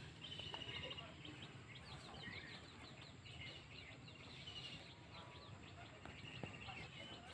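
Faint outdoor birdsong: a small bird repeats a short, rapid trill several times, with scattered chirps from other birds over a low background rumble.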